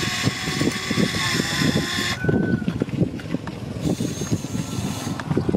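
Electric drive motors of a radio-controlled model Cat 330D excavator whining as its crawler tracks clatter and crunch over a steel rail and railway ballast. The motor whine cuts off abruptly about two seconds in and gives way to a brief higher whine. The irregular crunching of stones under the tracks goes on.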